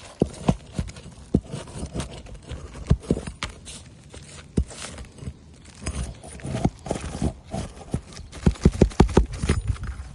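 Sharp knocks and taps of a roof snake tool being worked under asphalt shingles to free the nails, with a quick run of knocks near the end.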